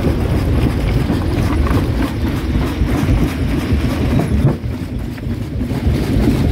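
Rock crusher running with stone being broken in it: a heavy rumble packed with irregular knocks and cracks, easing off briefly about four and a half seconds in.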